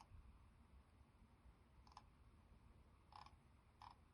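Faint computer mouse clicks, four single clicks spaced irregularly, over near-silent room tone.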